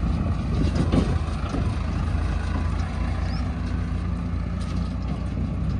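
Heavy diesel engine running steadily, a low rumble with a few uneven bumps in level.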